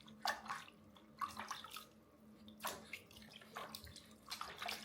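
Water splashing and dripping in a baby bathtub as a newborn is washed, in short irregular splashes. A faint steady hum runs underneath.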